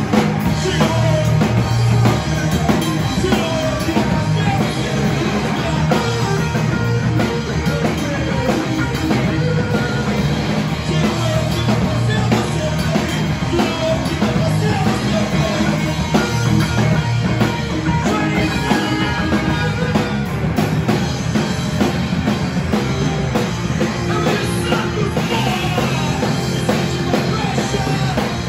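Live rock band playing loud and steady: a drum kit with crashing cymbals, distorted electric guitar and electric bass.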